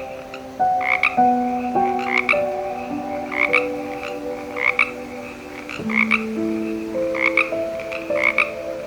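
A frog croaking in short, sharp double calls, about one pair a second, over background music of slow held notes.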